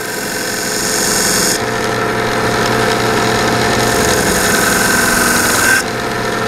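Harbor Freight 1x30 belt sander running with a Surgi-Sharp leather strop belt, its motor humming steadily. A knife edge is stropped on the moving belt twice, adding a hissing rub: once for about a second and a half, then again from about four seconds in until about six, with a faint whistle in the second pass.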